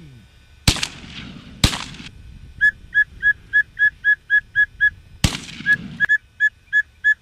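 Three shotgun shots: two about a second apart near the start and a third about five seconds in, each with a short echo. Between them comes a high whistled note, repeated quickly about four times a second in two runs.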